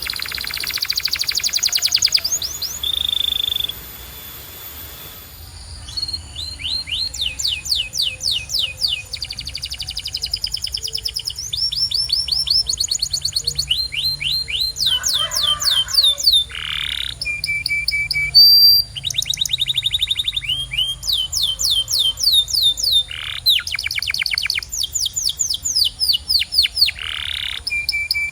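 Canary singing a long song of fast trills, each phrase a rapid run of the same repeated note, changing pitch from phrase to phrase, with a short break about four seconds in.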